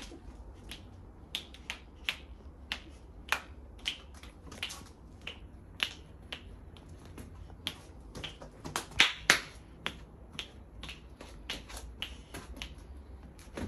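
A child making a run of sharp clicks by hand or mouth, uneven, about two or three a second, with two louder clicks a little past the middle.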